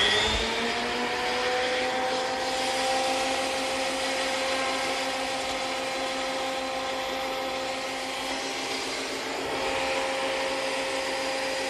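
Surface planer's motor coming up to speed: a rising whine over the first second, then running steadily at full speed.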